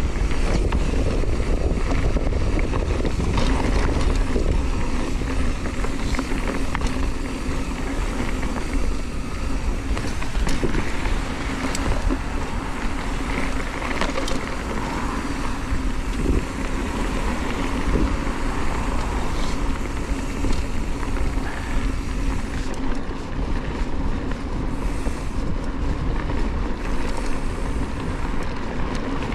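On-One Scandal hardtail mountain bike rolling over a dirt trail: steady tyre and drivetrain noise with scattered knocks and rattles from bumps, and a deep wind rumble on the action camera's foam-covered microphone.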